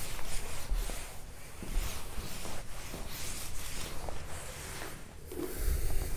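Writing: irregular soft scratching and rubbing strokes, with a few small knocks.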